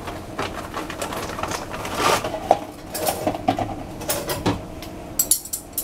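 Slices of bread being laid out on a metal baking tray: irregular light taps and knocks, two of them stronger about two seconds in, and a brief scratchy sound near the end.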